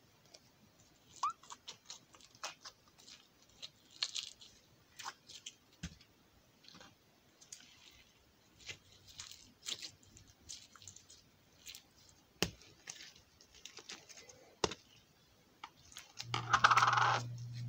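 Pink slime being squeezed and kneaded by hand: scattered small sticky clicks and pops. Near the end comes a louder, about one-second rustling burst, and a steady low hum starts with it.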